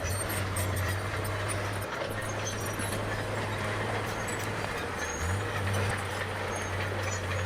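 Bulldozer's diesel engine running steadily under work, its note dipping briefly about two seconds in and shifting slightly about five seconds in.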